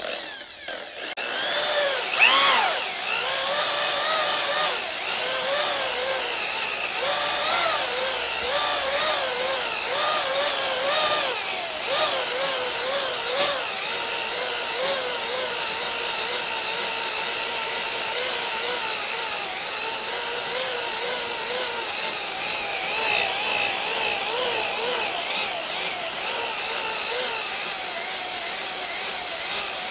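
Cordless drill spinning a ball hone (flex hone) inside the oiled cylinder bore of a Yamaha G29 golf cart engine, the abrasive balls scraping the cylinder wall while the drill motor whines with a pitch that wavers up and down. This is the honing stage that puts a crosshatch on the cylinder wall ahead of a new piston and rings.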